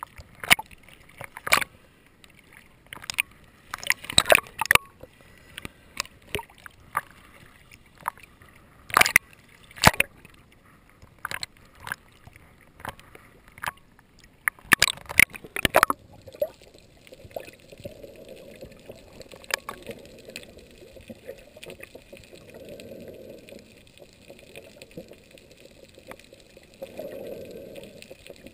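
Small sea waves slapping and sloshing against a camera held at the water surface, in sharp irregular splashes. About sixteen seconds in the camera goes under and the sound turns muffled and dull, a low underwater rush that swells now and then.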